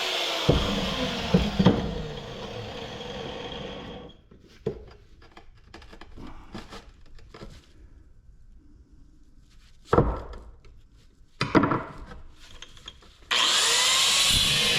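Scraping, knocking and a few sharp strikes on the metal of a scrap compressor being dug apart, after a loud power tool dies away at the start. A loud steady sound starts abruptly near the end.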